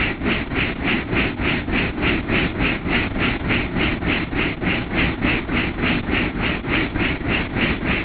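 Helicopter in flight: a steady low engine and rotor rumble with a regular rotor beat of about three to four pulses a second.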